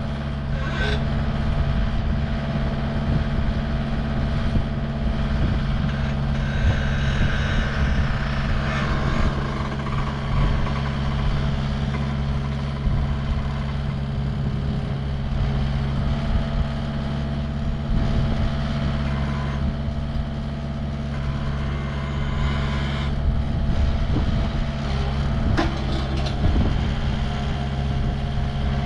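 Skid steer engine running steadily throughout, with slight changes in tone as the loader arms raise the truss boom.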